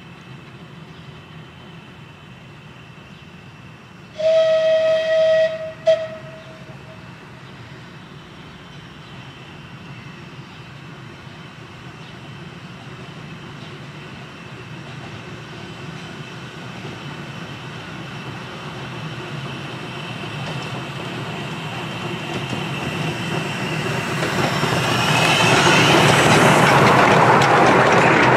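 Miniature Hunslet 0-4-0 saddle-tank steam locomotive sounding its whistle: one long blast about four seconds in and a short one just after. Then the locomotive and its passenger carriages run towards the listener and pass close by, growing steadily louder to the end.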